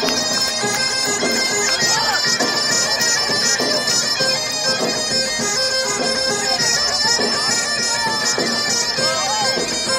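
Bagpipe music: the drones hold steady tones under a moving melody.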